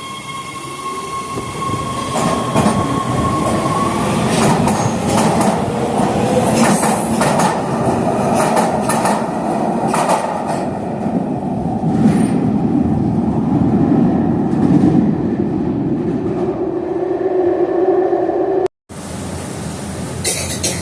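LA Metro rail train running, its wheels rumbling and clicking over the track. A steady high tone fades out about four seconds in, and a tone rises slowly in the last few seconds. The sound cuts out briefly near the end.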